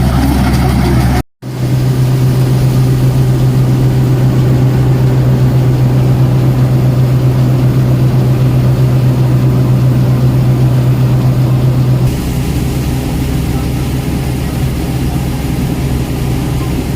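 Engine of a rice harvesting machine running steadily with a low, even hum. It breaks off abruptly about a second in, then resumes; its tone changes near twelve seconds in.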